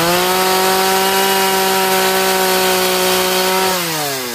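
Gas chainsaw held at full throttle while its bar makes a shallow cut into a wood block, the engine pitch steady, then dropping back toward idle near the end as the saw comes out of the wood.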